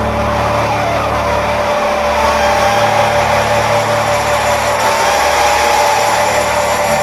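A steady, loud rushing mechanical noise with a whine that slowly rises in pitch.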